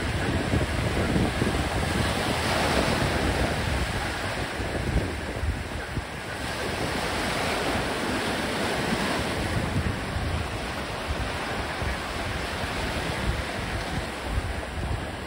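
Ocean surf breaking and washing up the shore, a steady hiss that swells and ebbs as each wave comes in. Wind buffets the microphone with a low rumble.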